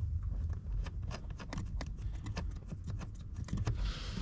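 Light, irregular metal clicks and taps of nuts being fitted by hand onto the studs of the steering-shaft bearing plate at the firewall, over a steady low hum.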